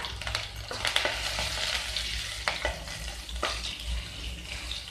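Crushed garlic and phutana (Odia five-spice seeds) sizzling in a spoonful of hot mustard oil in a metal kadai. A spatula stirs them and scrapes and taps against the pan a few times.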